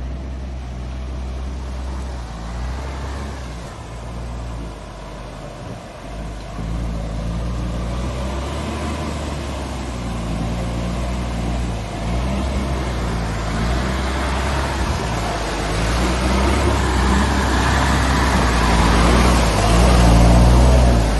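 Diesel engine of a heavy cargo truck running under load as it comes through a flooded mud track, growing louder as it nears and passes close by, with water splashing and hissing under its tyres.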